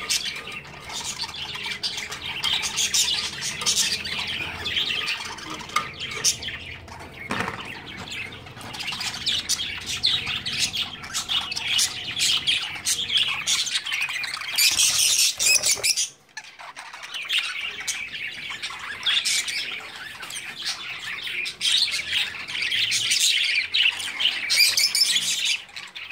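Small caged parrots, lovebirds among them, chirping and squawking in a constant chatter. The sound drops out briefly about two-thirds of the way through.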